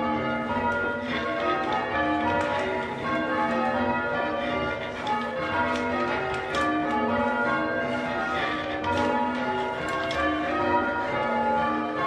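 English church bells rung full-circle in changes from the ringing chamber below: a steady, unbroken sequence of bell strokes, one after another, their tones overlapping and ringing on.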